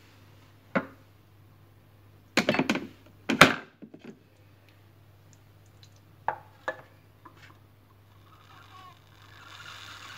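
A few sharp clicks and knocks of hard plastic and metal as the Thermomix's lid is worked and taken off the stainless steel jug, the loudest cluster about two and a half to three and a half seconds in, over a low steady hum.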